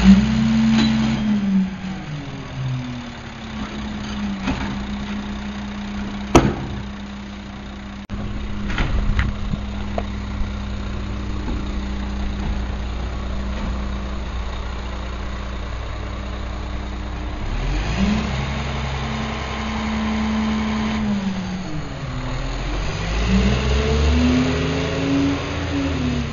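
Diesel engine of a Crane Carrier (CCC) garbage truck with a Wittke manual side-loader body, idling steadily, then revving up and down twice near the end as the truck pulls away. A single sharp knock comes about six seconds in.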